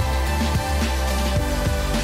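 Background music with held bass notes and drum hits.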